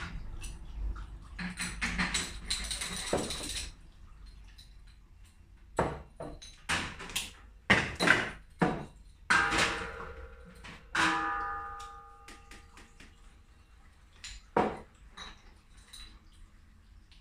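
Glass bottles being handled and knocked together, a scattering of sharp clinks. One knock leaves a bottle ringing for about a second. A short rush of hissing noise comes before the clinks.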